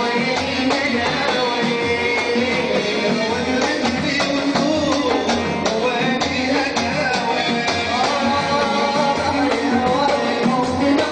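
Live Saudi party music in the shakshaka style: oud, keyboard and a percussion troupe playing a steady rhythm.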